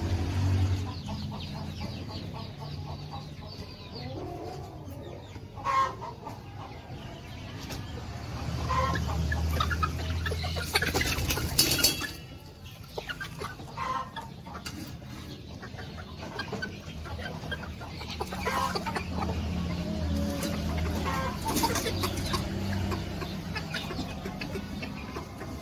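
Young free-range village chickens, lying with their legs tied, clucking and now and then squawking, over a low steady hum.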